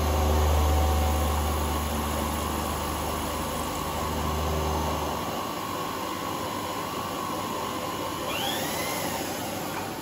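Manual combination milling machine running, its end mill cutting an aluminium part under power feed: a steady machine hum with a thin whine over it. The low hum stops about halfway through, and a little after 8 s there are two short curving squeals.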